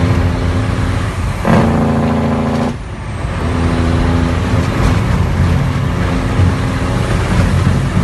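Straight-piped Cummins diesel truck engine running under way, heard from the cab. It gets louder about a second and a half in, dips sharply near three seconds, then builds again.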